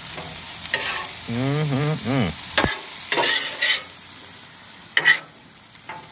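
Diced ham and frozen mixed vegetables sizzling on a hot steel griddle. A metal spatula scrapes and clinks across the plate several times as the food is flipped. There is a brief vocal sound about a second and a half in.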